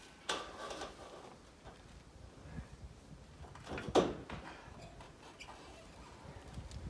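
A sharp knock with a short scrape just after the start, then a louder single knock about four seconds in, with faint low rustling between: objects being handled and set down.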